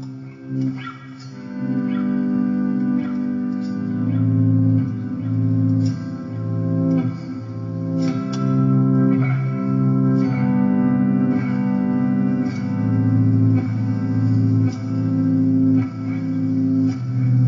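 Guitar being played: picked notes ringing over sustained low notes, in a continuous run of music.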